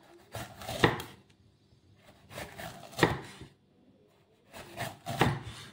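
Cleaver slicing rings off a red bell pepper onto a wooden chopping block. There are three cuts about two seconds apart, each a pair of sharp knocks as the blade goes through the pepper and strikes the board.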